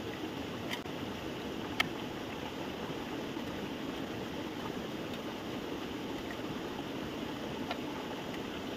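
Steady rushing noise of running water, with two sharp clicks about a second and two seconds in, the second the louder.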